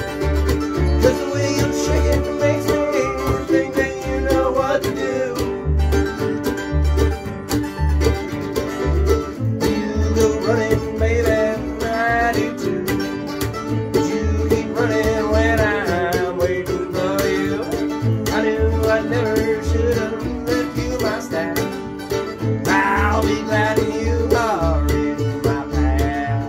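Acoustic bluegrass trio of mandolin, acoustic guitar and plucked upright bass playing a song, the bass thumping steadily on the beat. A man's singing voice comes in near the end.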